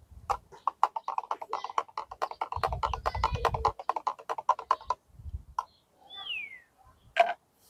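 Liquid sloshing in the plastic bottle of a foam cannon: a fast run of wet pulses, about ten a second, lasting about five seconds. Near the end come a short falling chirp and one sharp click.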